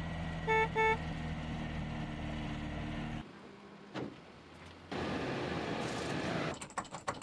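A Volkswagen bus engine running steadily, with two short horn beeps about a second in. After a cut there is a single thump, a stretch of hiss, and a quick run of clicks near the end.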